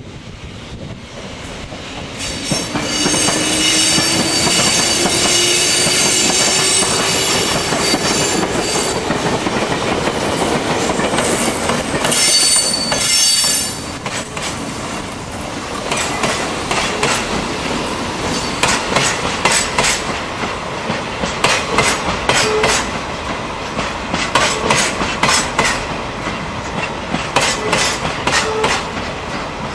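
JR Freight EF65 electric locomotive passing close, with a high ringing squeal over its running noise in the first part. Then a string of coal hopper wagons rolls by, their wheels clicking rapidly and rhythmically over the rail joints.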